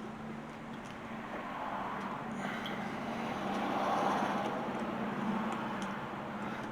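A passing motor vehicle: a steady low hum with a broad rushing noise that swells to a peak about four seconds in and then fades.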